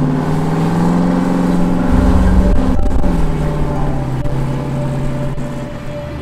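Engine of a lowered 1969–70 Chevrolet C10 pickup accelerating as it drives by, its pitch rising for nearly three seconds. The pitch then drops sharply and keeps easing lower as the truck rolls on.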